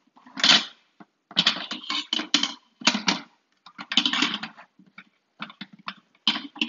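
Instant Pot lid being fitted and twisted on the pot, scraping and rattling against the rim in a series of short bursts.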